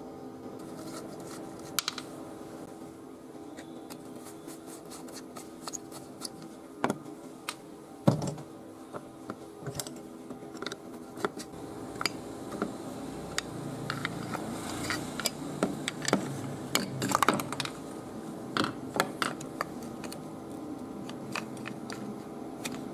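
Screwdriver and small metal parts clicking, tapping and scraping against the hard plastic housing of an old hair clipper as it is taken apart: a scattered run of sharp clicks, one louder knock about eight seconds in, over a steady background hum.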